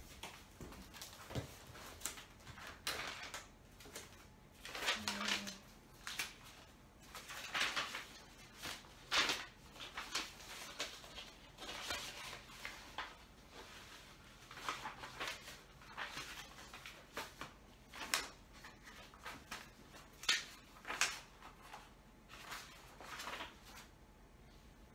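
Sheets of paper rustling and shuffling as a stack of school papers and coloring pages is leafed through and sorted by hand, in short irregular swishes.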